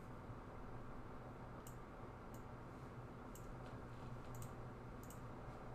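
Computer mouse clicking about seven times, sharp and light, some clicks in quick pairs, over a faint steady low hum.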